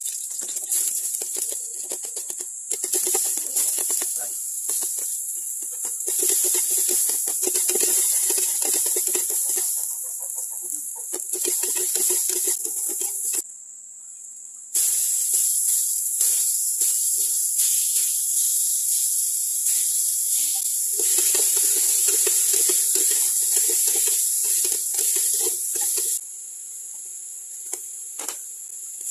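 Black chicken pieces searing in hot oil in an aluminium pot: a steady loud sizzle with crackling, breaking off for about a second midway and going quieter for the last few seconds.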